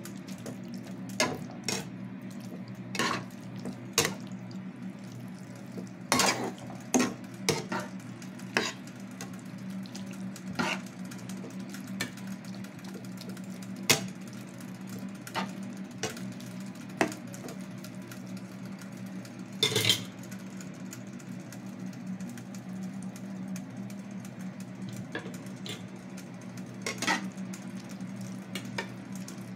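A slotted metal spatula stirring sauced vegetables in a white-coated frying pan: irregular clinks and scrapes of metal against the pan, over a steady low hum.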